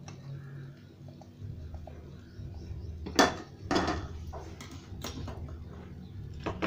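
Metal utensils clinking and scraping against a pan and a steel bowl as fried stuffed brinjals are tipped from the pan into the bowl: a few sharp clinks, the loudest about three seconds in.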